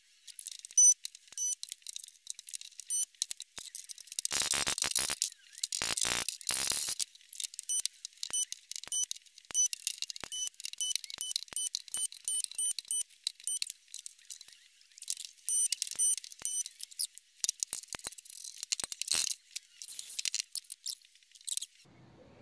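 Electric welding arc crackling and spitting in short bursts as a steel car body repair panel is stitch-welded along its seam, with fuller, louder bursts about four to seven seconds in.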